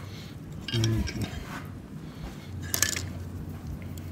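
Steel pliers clinking and scraping against the valve springs and retainers of a Continental flathead four-cylinder engine, with a louder clatter about a second in and a sharp clink near three seconds.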